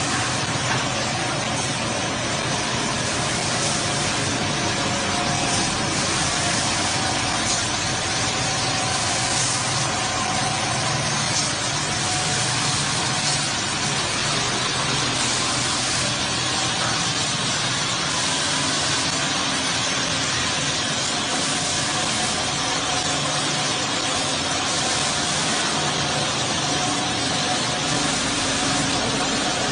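Steady machine noise and hiss of a hinge punching production line running, with a faint steady whine and no distinct punch strokes standing out.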